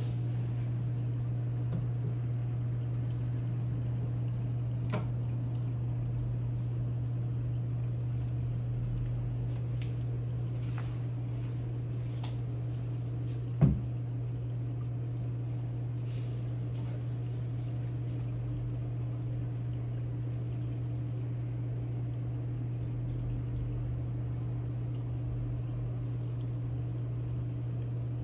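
Reef aquarium water circulating: water pouring and trickling steadily over a constant low hum, typical of the tank's pump. A single short thump comes about halfway through.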